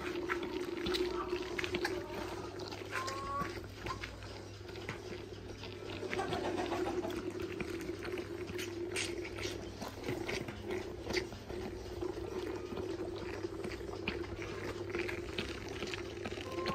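A calf sucking and slurping milk from a plastic feeding bottle's rubber teat, with quick wet smacks throughout, over a steady low hum.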